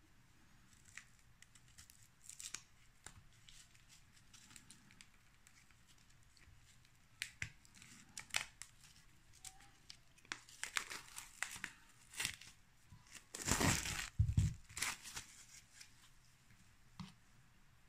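Plastic cling film being peeled and torn off a trimmed young coconut: scattered crinkles and small tears, with the loudest stretch of tearing about three-quarters of the way through.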